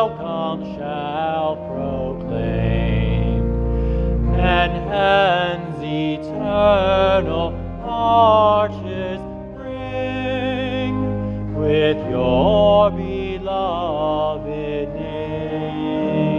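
A hymn sung with a wide vibrato over sustained organ chords.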